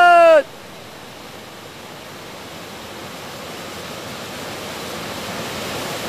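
Waterfall pouring into a plunge pool: a steady rush of water that slowly grows louder. A loud, long held shout drops in pitch and cuts off about half a second in.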